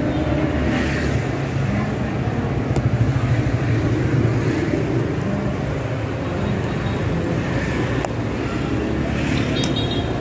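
Steady hum of street traffic, vehicles passing, with a few light sharp clicks.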